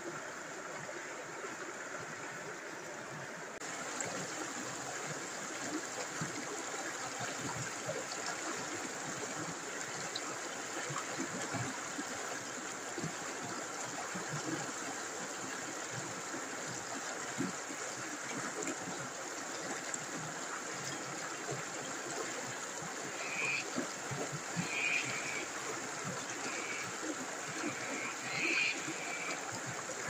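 River rapids: water rushing and splashing over rocks, a steady rushing noise that gets a little louder about four seconds in. In the last few seconds a bird calls several times in short notes.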